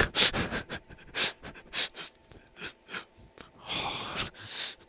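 A man's stifled, breathy laughter: a run of short wheezing bursts of breath, then a longer hissing exhale near the end.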